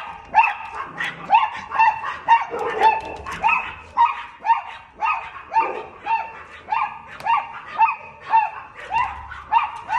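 Chihuahua barking at a cat, high and yappy, in a steady string of about two barks a second, heard through a glass door.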